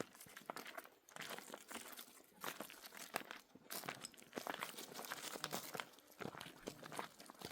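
Irregular crackling, crinkling and crunching, a close run of small clicks and rustles as something dry or crinkly is handled.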